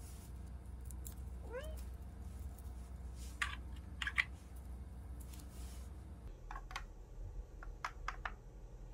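A cat gives one short meow that rises in pitch, then the plastic parts of a cat food-puzzle toy click as they are moved: two sharp clicks around four seconds in, the loudest sounds here, and several lighter clicks near the end as a paw works at the puzzle.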